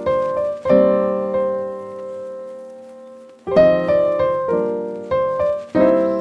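Background piano music: gentle chords and notes struck and left to ring, with a long held chord fading in the middle before new phrases begin.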